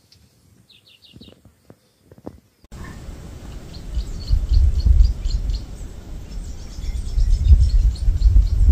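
Small birds chirping in short high notes. About three seconds in, a loud, uneven low rumble comes in suddenly and stays as the loudest sound.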